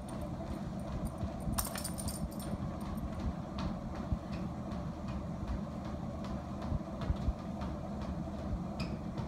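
Motorised treadmill running with a steady low hum from its belt and motor, under the repeated thuds of walking footsteps on the belt. A brief jingle comes about one and a half seconds in.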